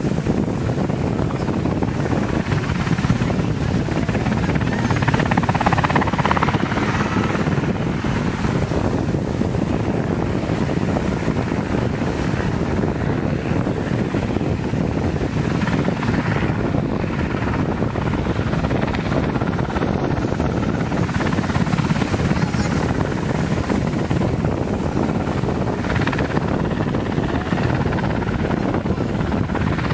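Coast Guard search-and-rescue helicopter hovering over the sea: steady rotor and turbine noise, mixed with waves breaking on the beach.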